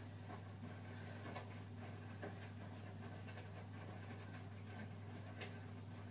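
Pot of frying oil heating on the hob: faint, irregular soft crackles and ticks over a steady low hum.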